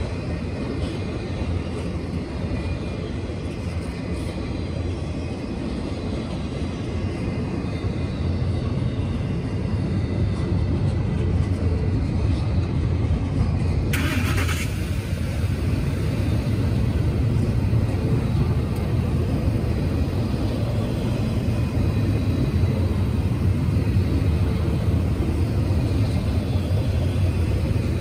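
Double-stack intermodal freight train passing close by: a steady low rumble of steel wheels on rail that grows a little louder about a third of the way through, with a brief high hiss about halfway.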